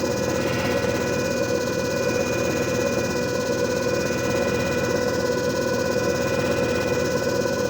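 JFJ Easy Pro disc repair machine running: a steady motor hum with a constant whine that does not change.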